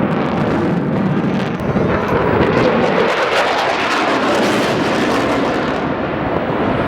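Eurofighter Typhoon's jet engines, loud and steady, with a crackling edge in the middle.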